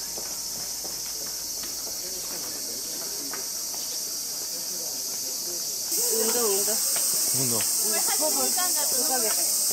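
Cicadas in a steady, high, shrill chorus from the surrounding trees, louder from about six seconds in, with people's voices nearby partway through.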